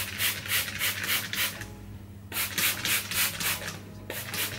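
Trigger spray bottle misting water onto hair: quick repeated squirts, about five a second, in three runs with short pauses between them.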